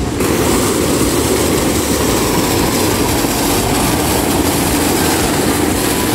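Fountain water falling and splashing into its pool, a steady rushing splash heard close up.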